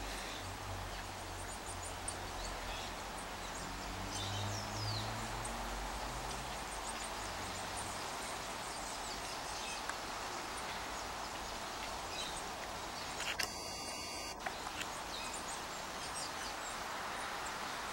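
Outdoor background ambience: a steady hiss with a few faint bird chirps, and one brief harsh buzzy burst about three-quarters of the way through.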